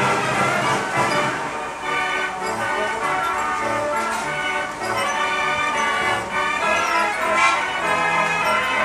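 Fairground organ music playing from a set of gallopers, a continuous tune of shifting notes.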